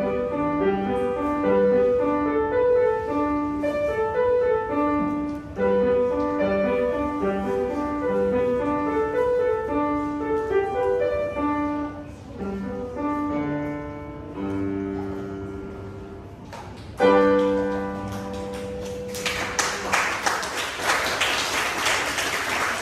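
Grand piano played solo, a steady stream of short notes that ends about seventeen seconds in on a held final chord. Audience applause follows from about nineteen seconds.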